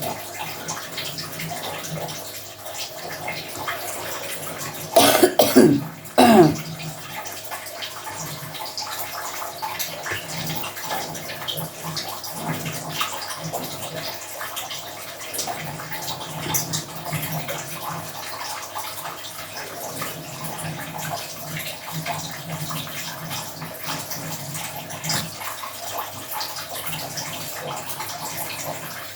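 A person coughs twice in quick succession about five seconds in, over a steady rush of running water.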